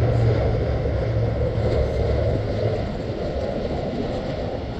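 Airbus A350 airliner on landing approach, its Rolls-Royce Trent XWB jet engines a steady low rumble that eases slightly toward the end.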